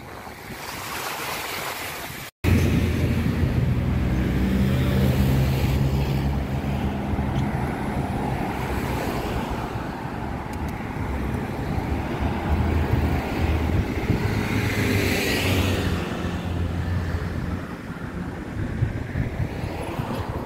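Wind buffeting the microphone outdoors, a loud, low rumble that starts abruptly after a brief dropout about two seconds in. Before it there is a fainter wash of wind noise.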